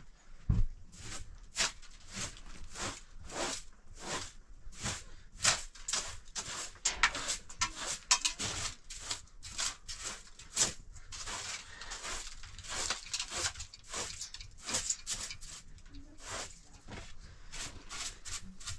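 A long run of short, sharp knocks and scrapes, irregular, a couple to a few a second.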